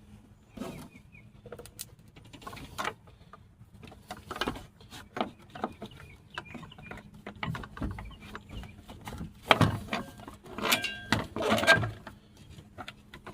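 Irregular clicks, knocks and clatter of hands handling parts and tools during pump wiring work, getting busier and louder about nine seconds in, with a brief squeak near the end and a faint steady hum underneath.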